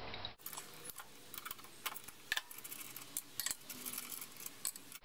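Faint, irregular small metallic clicks and ticks as the cover housing a drill press's quill return spring is undone and taken off by hand, starting about half a second in.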